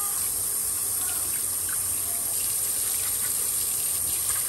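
Kitchen tap running steadily into a stainless-steel sink, the stream splashing over hands and then over a knife being scrubbed with a sponge.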